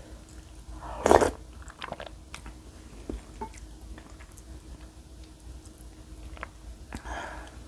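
A loud, short slurp of spicy beef soup (yukgaejang) from a wooden spoon about a second in, followed by chewing and small clicks of the spoon in the ceramic bowl, with a softer slurp near the end.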